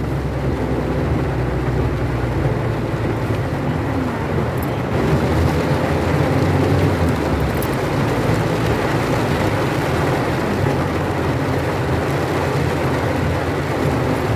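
A vehicle's engine running steadily under a steady hiss, the hiss growing louder about five seconds in.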